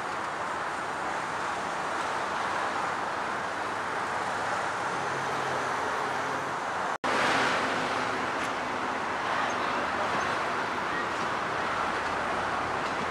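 Passenger train coaches rolling past close by: a steady rumble and rattle of wheels on the rails. The sound cuts out for an instant about seven seconds in, then carries on a little louder.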